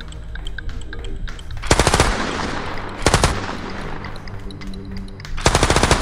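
Automatic gunfire sound effect: three short rapid bursts of shots, one near two seconds in, one after three seconds, and one near the end.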